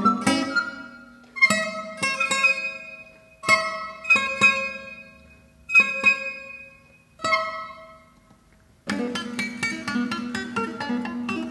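Classical guitar playing single plucked chords one to two seconds apart, each left to ring and die away. About nine seconds in it breaks into a fast, busy run of notes.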